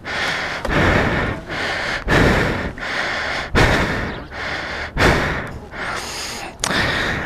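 A man panting hard, quick even breaths in and out about every three quarters of a second: out of breath from pushing a heavy motorcycle a long way on foot.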